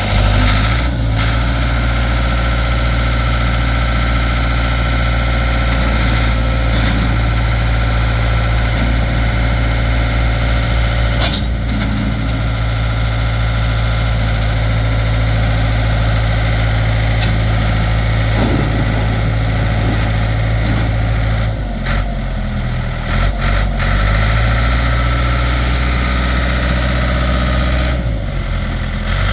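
Ford 555C loader backhoe's four-cylinder diesel engine running steadily, with a few brief dips in level about two-thirds of the way through and again near the end.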